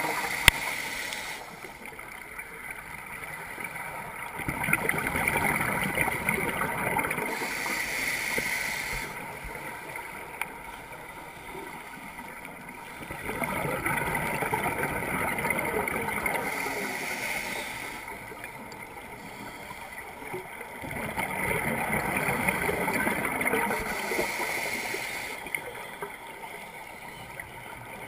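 A scuba diver's regulator breathing underwater: a loud bubbling rush of exhaled air about every eight to nine seconds, each lasting a few seconds, with quieter hissing between.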